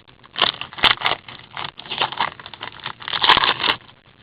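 Crinkling foil wrapper of a hockey card pack being handled and opened, in irregular bursts that are loudest about a second in and again a bit past three seconds.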